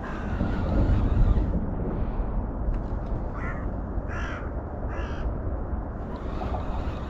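A crow cawing three times, about a second apart, starting about three seconds in, over a steady low rumble.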